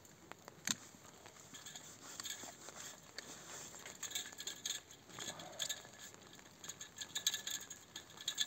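A single sharp snip of hand pruning shears cutting a grapevine cane a little under a second in, followed by light irregular rustling and clicking as cut vine canes are pulled along and off the trellis wire.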